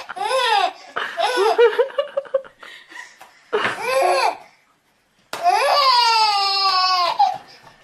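Babies laughing in short bursts, then one long squealing laugh about five seconds in that falls slightly in pitch.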